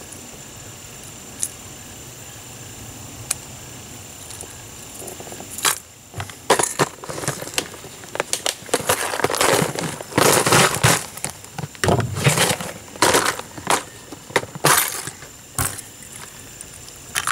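Plastic tackle box being opened and rummaged through: lures and trays rattling and clattering in a long run of loud, irregular bursts from about six seconds in, after a few faint clicks.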